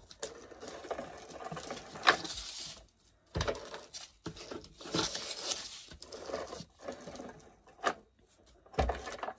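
A sheet of paper being handled, rustling and crinkling in irregular bursts, with a few light knocks.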